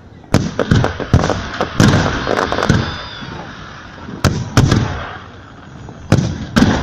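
Salute fireworks exploding overhead: a run of sharp bangs in clusters of two or three, with crackling between the clusters.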